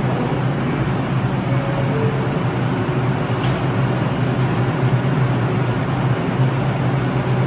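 R62A subway train standing at the platform with a steady low hum from its running equipment, and a short knock about three and a half seconds in as its doors close.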